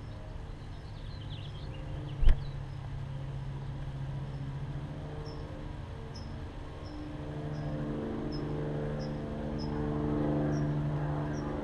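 Nestling birds begging with thin, high peeps repeated about every half second, after a brief twittering early on. A sharp knock about two seconds in is the loudest sound. Underneath is a steady low hum that swells near the end.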